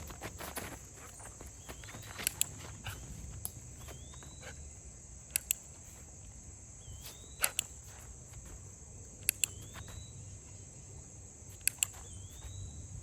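A dog-training clicker is clicked five times, roughly every two seconds, each click a sharp double snap from pressing and releasing it. This marks moments in the dog's pivot training.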